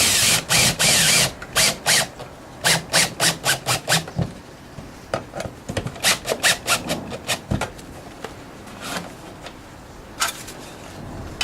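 Power drill driving screws to fasten a downpipe strap. It runs for about a second and a half, then gives many short trigger bursts, several a second, until a little past the middle, with one last short burst near the end.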